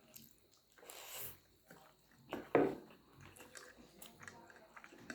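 People chewing and eating noodles and dried buffalo meat, with small mouth and utensil clicks. There is a short hissy burst about a second in and a brief louder sound about two and a half seconds in.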